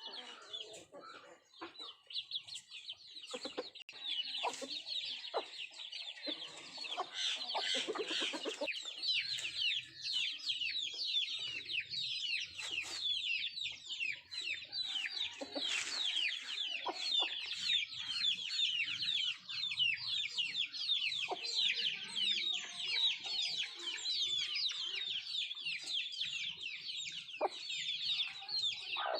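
Country chickens (nattu kozhi) clucking while feeding, over a constant chorus of many short, high chirps that fall in pitch, with occasional lower clucks.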